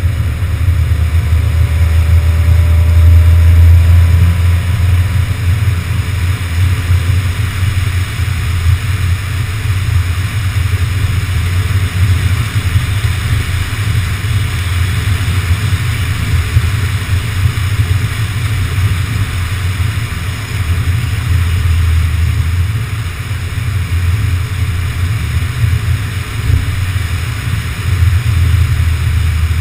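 A car driving at road speed, heard through a camera mounted on the outside of the car: wind buffeting the microphone in a steady low rumble, with road and engine noise under it.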